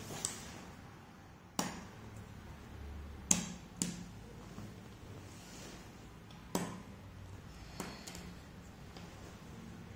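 Jigsaw puzzle pieces being set down and pressed into place on a hard surface: about six short, sharp taps at irregular intervals, the loudest about a third of the way in.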